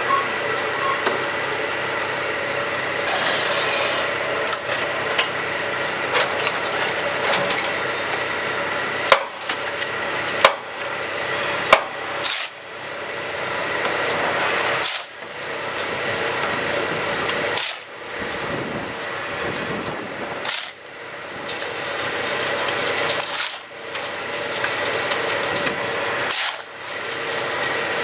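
Semi-automatic concrete block forming machine running with a steady mechanical hum and rattle, a few sharp metal knocks about nine to twelve seconds in. From then on the running noise cuts out briefly every two to three seconds.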